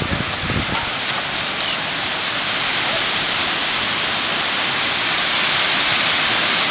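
Ocean surf breaking on a sandy beach: a steady, even hiss of waves. A few low buffets of wind hit the microphone in the first second or two.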